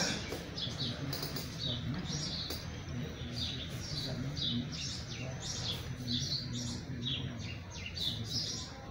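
Small birds chirping: short high chirps, about two or three a second, over a steady low background hum.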